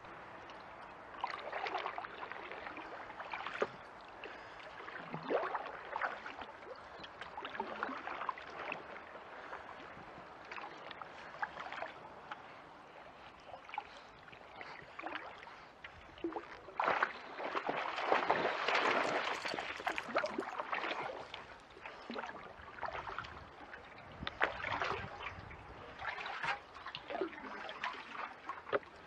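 Kayak paddle strokes in calm creek water: the blades dip and splash every second or two, at an uneven pace, with drips and trickles between strokes. A longer, louder wash of water comes about two-thirds of the way through.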